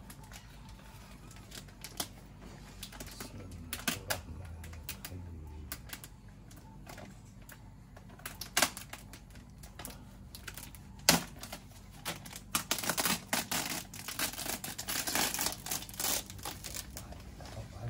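Scattered clicks and crackling as the wooden lid of a kelulut (stingless bee) hive's honey box is prised open and the plastic sheet over the honey pots is peeled back. One sharp click comes about eleven seconds in, then a dense run of crackle near the end.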